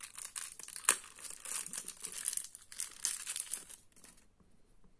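Crinkly wrapping being handled and crumpled by fingers, with one sharp click about a second in. The crinkling stops about four seconds in.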